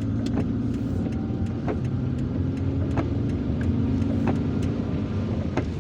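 Car engine running at steady revs, heard from inside the cabin with road noise, while scattered sharp ticks come at uneven intervals.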